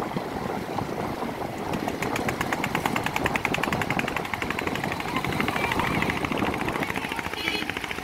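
Fishing boat's engine chugging with a fast, even knocking that comes in about two seconds in and fades near the end, over a steady background rush.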